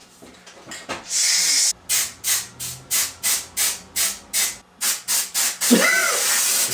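Aerosol spray can hissing as black paint is sprayed through a beard stencil: one long spray, then a quick run of short bursts about three a second, then another long spray near the end.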